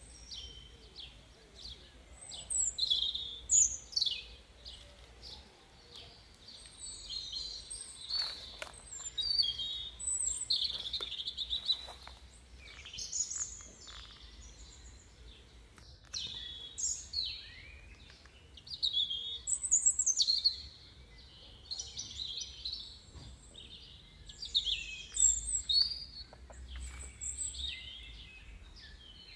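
Small birds chirping and calling: many short, high calls, several falling in pitch, come and go throughout.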